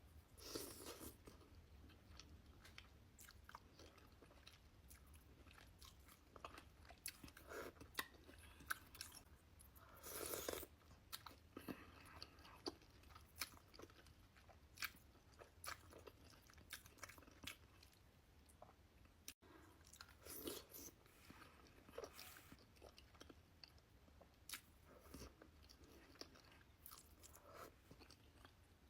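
A person eating seafood boil close to the microphone: soft chewing and biting with scattered crunches and small wet mouth clicks.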